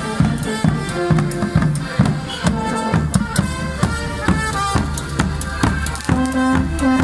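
Street band of carnival musicians playing a tune, with a steady drum beat under a melody.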